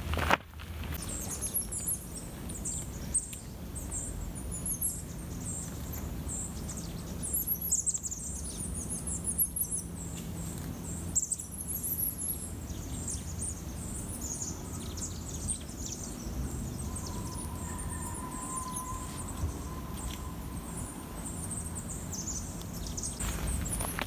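Small songbirds singing many short, high-pitched chirping phrases over a low, steady background rumble.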